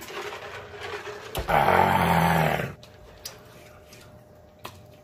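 A man drinking in gulps from a mug. About a second and a half in comes a loud, gravelly sound from his throat, lasting about a second, as he comes off the drink.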